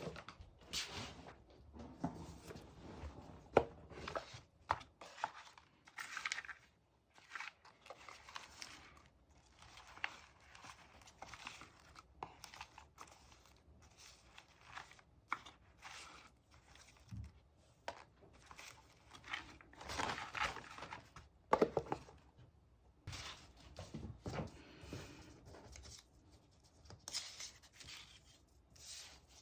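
Paper and stickers being handled: irregular tearing, rustling and crinkling, with small sharp taps and clicks.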